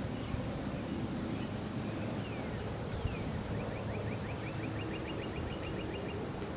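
Outdoor ambience with a low steady rumble of wind on the microphone, and small birds chirping, one giving a quick trill of about ten notes a second about halfway through.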